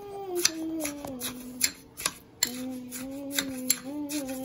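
A metal spoon clinking and scraping against a drinking glass while shaved ice is mixed into halo-halo, in sharp irregular ticks. Under it, a person hums low, held notes that step up and down.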